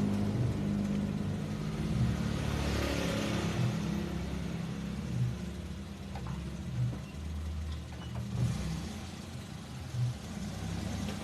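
Car engine running at low revs as the car creeps forward, with a rush of tyre noise swelling and fading about two to three seconds in. There is no loud crunch or break.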